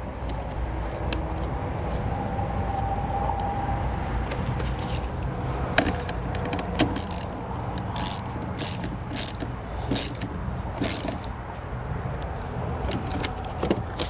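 Ratchet with a 12 mm socket tightening a nut onto a car battery's positive terminal stud: a scatter of short, sharp metallic clicks from about a third of the way in, over a steady low hum.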